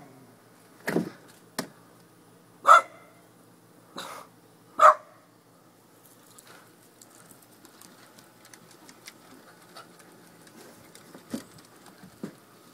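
Dachshund barking, four sharp barks spread over the first five seconds, then falling silent.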